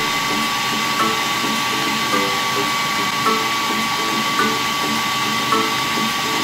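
Electric food processor motor running steadily as it beats a cake batter.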